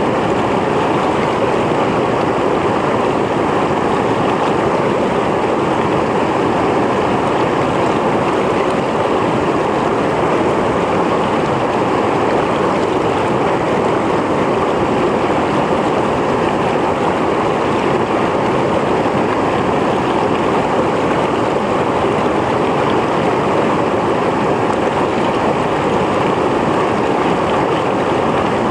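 Mountain stream flowing steadily over rocks, a continuous even rushing of water with no breaks or separate splashes.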